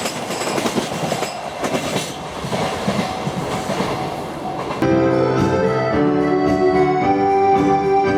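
A freight train rolling past on the rails, with repeated knocks from the wheels. About five seconds in, music starts suddenly and takes over.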